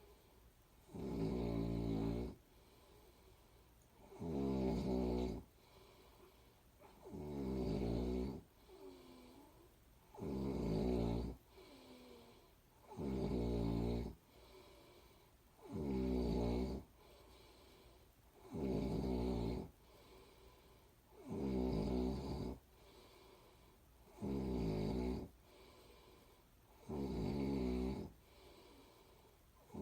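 A person snoring in a slow, even rhythm: a snore of about a second roughly every three seconds, with faint breath sounds in between.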